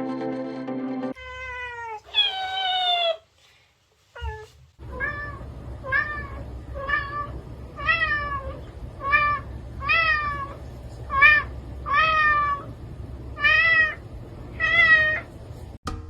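Domestic cat meowing: one long falling meow, then a steady run of short, falling meows about one a second over a low background rumble.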